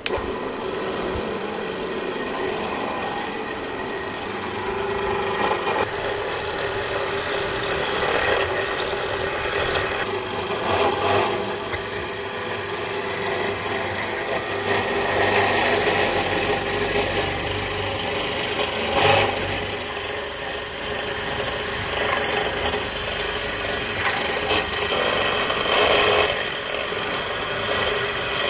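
Electric motor with a long rotary cutting bit chucked straight onto its shaft, running steadily while the bit grinds into a wooden carving. A rough rasping rises and falls as the wood is pressed against the spinning bit.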